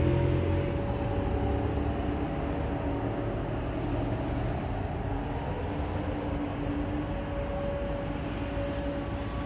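Distant air-raid siren holding a steady tone over a wash of outdoor background noise.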